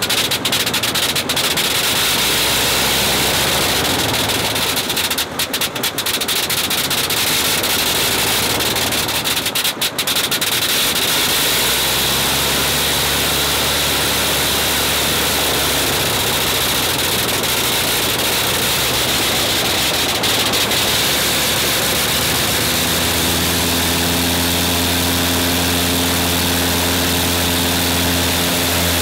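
Sopwith Pup's rotary engine running after a start, propeller turning, loud and steady, with brief dips in the sound about five and ten seconds in. From about twelve seconds a steadier, deeper hum sets in, joined by a fuller low note near the end as it runs up.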